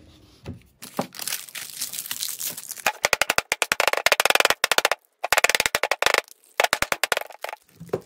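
Thin plastic measuring-jug mould crackling and creaking in rapid runs of clicks as it is twisted and pried off a cured epoxy resin casting, the plastic splitting.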